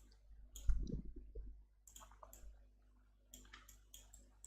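Scattered clicks of a computer mouse and keyboard as the 3D software is operated, with a low thump just under a second in.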